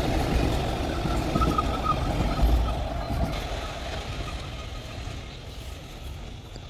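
Container freight train's wagons rolling along the rails, a steady rumble that fades as the end of the train moves away.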